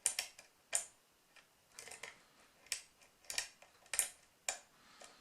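Pin-tumbler rim cylinder being single-pin picked: sharp, light metallic clicks from the pick and pins, irregular, roughly one or two a second, some with a brief scrape.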